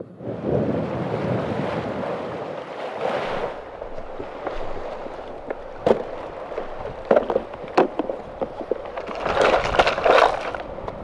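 Wind rushing over the microphone for the first few seconds. Then come a few sharp clicks and knocks as gear is handled, and near the end a burst of plastic rattling and clicking as a plastic tackle box is opened.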